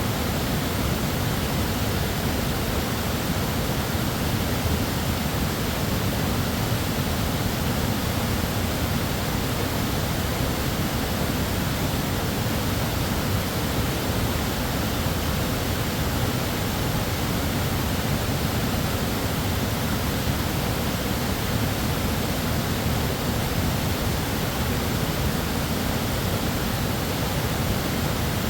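The tiered falls of the West Fork Foss River: a steady, unbroken rush of water pouring over rock, deepest in the low end.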